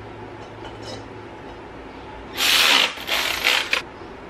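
Three short rasping strokes of a hand tool working on the engine's throttle-body hardware, starting about halfway in, with a sharp click at the end of the last one.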